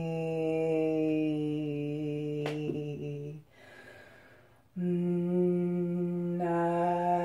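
A woman's voice toning a long, low held note, then a breath about three and a half seconds in, then a second long held note that brightens about six and a half seconds in.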